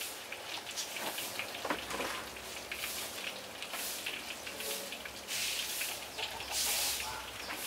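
Hot oil sizzling and crackling as corn fritters fry in a pan, with many sharp pops. Two louder surges of sizzle come about five and a half and seven seconds in.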